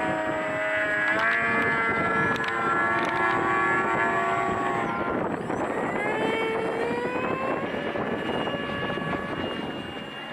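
Radio-controlled model aircraft motor and propeller running, with several steady tones that shift in pitch with the throttle and a rising glide about six seconds in.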